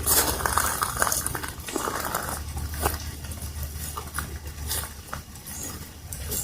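Irregular patter and taps of walking in light rain, over a steady low rumble.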